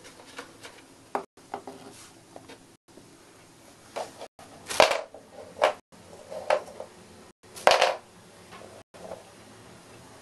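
Bone-shaped dog biscuit knocking and scraping on a wooden floor as a hamster drags it along: irregular small clicks, with a few louder half-second scrapes between about four and eight seconds in.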